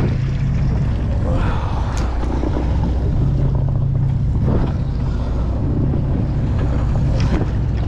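Sportfishing boat's engine running steadily, with wind on the microphone and a few light knocks.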